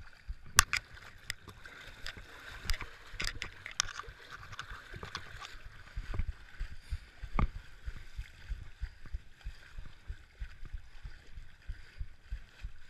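A runner wading through a shallow creek, legs and hands splashing and sloshing the water in irregular strokes.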